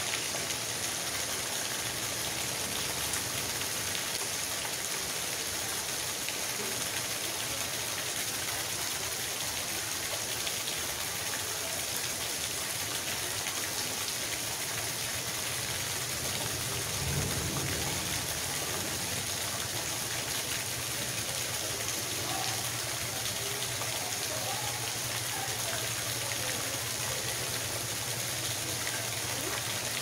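Steady rain falling on a wet gravel yard and a puddle, with a stream of water splashing into the puddle. A short low rumble comes a little past halfway.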